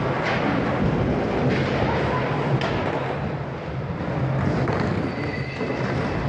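Skateboard wheels rumbling steadily over a wooden bowl as the board carves around it, with a few sharp knocks from the board.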